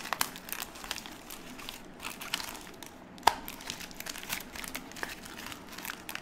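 Crinkling and rustling of a black plastic foil wrapper on a small cardboard blind box being handled and slid apart, with a sharp click about three seconds in.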